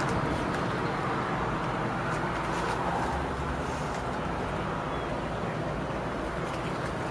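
Doosan S018VT mini track excavator running, its diesel engine giving a steady drone, a little louder in the first few seconds.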